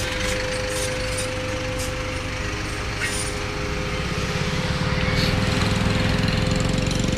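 A motor running steadily with a constant hum and a low, fast-pulsing rumble that grows louder about four seconds in.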